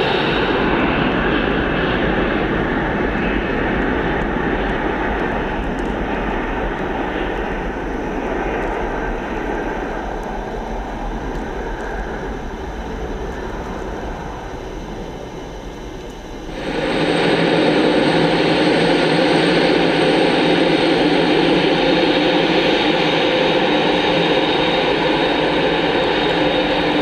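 Jet airliner engines: a steady rush that slowly fades over about sixteen seconds, then abruptly gives way to a louder, closer jet engine with a steady whine running over the roar.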